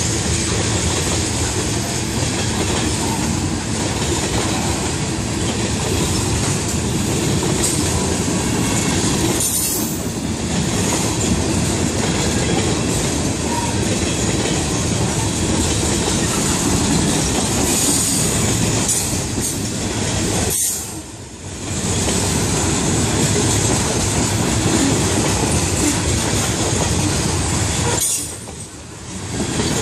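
Freight train of tank cars and covered hopper cars rolling steadily through a grade crossing, its steel wheels running on the rails. The sound dips briefly twice near the end.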